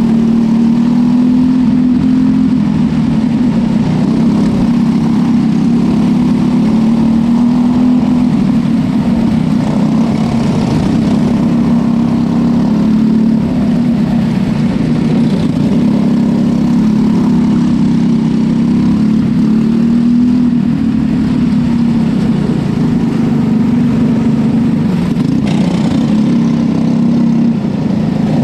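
Small winged dirt-track racing car's engine running steadily at a moderate pace, heard close up from onboard. Its pitch rises and falls a little with the throttle.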